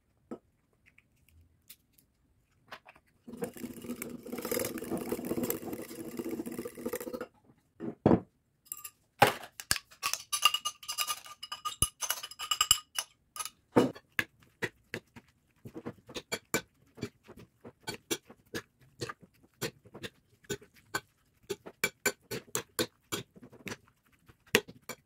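About four seconds of steady scraping as a yogurt-and-mayonnaise dressing is stirred with a spoon in a glass bowl. Then metal forks clink and scrape against a porcelain plate while shredded red cabbage salad is tossed: many light clicks in an irregular rhythm, a few ringing briefly.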